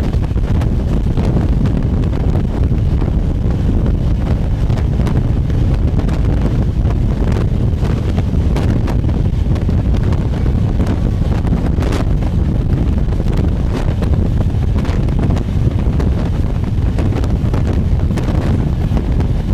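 Wind buffeting the microphone over the low, steady rumble of a fast-moving express train, heard from the side of a coach. Sharp clicks of the wheels over the track come now and then, the loudest about twelve seconds in.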